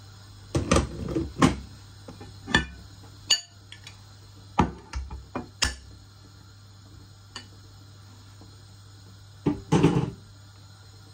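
Clatter of kitchen crockery and utensils: sharp knocks in short clusters, one with a brief ringing, over a low steady hum. The loudest knocks come about a second in and again near the end.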